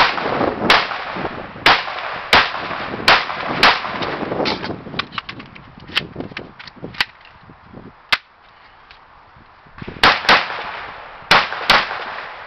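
Semi-automatic tactical rifle firing shot after shot, each crack followed by a short echo: six shots in the first four seconds, three about a second apart in the middle, then two quick pairs near the end.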